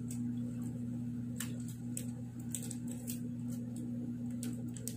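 Plastic wrapper of a chocolate bar crackling in scattered sharp clicks as it is pulled open by hand, over a steady low hum.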